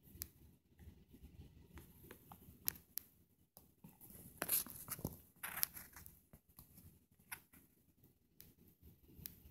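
Faint, scattered taps and rustling handling noise from a phone being held and tapped on its touchscreen, with a couple of louder rustles about halfway through.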